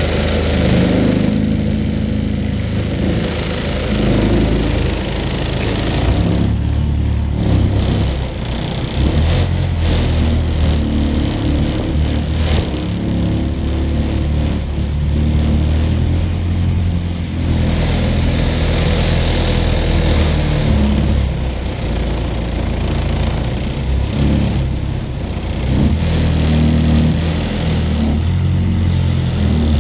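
Small boat's engine running under way, a steady low drone whose pitch shifts now and then.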